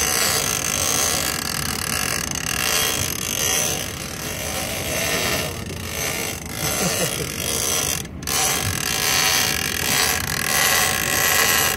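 Gold big-game fishing reel paying line out against its drag, a steady mechanical whir, as a large bluefin tuna takes a run. The sound breaks off briefly about eight seconds in.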